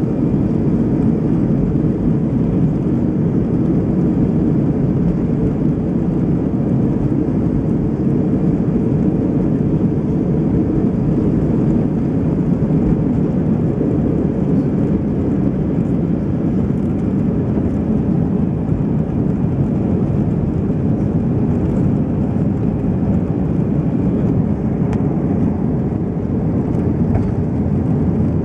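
Airbus A319 jet engines at takeoff thrust heard from inside the cabin: a loud, steady roar through the takeoff roll and climb-out.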